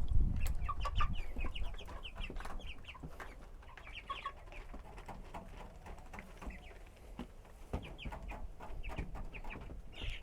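A flock of 4-week-old broiler chicks peeping and cheeping: many short, high calls at once, busiest about the first two seconds and again near the end, with scattered knocks and a low rumble beneath.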